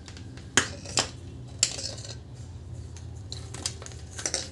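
Handling of hand tools and a soldering iron on a hard worktop: a handful of short, sharp clicks and knocks spread through, over a steady low hum.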